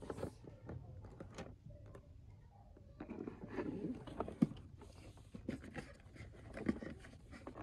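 Cardboard box being handled: scattered rustles, scrapes and light knocks, sparse at first and busier from about three seconds in, with one sharper knock about halfway through.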